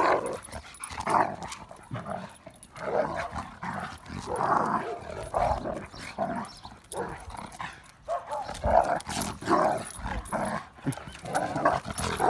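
A German Shepherd and an American Staffordshire Terrier play-fighting, growling at each other in short rough bursts that keep coming through the scuffle.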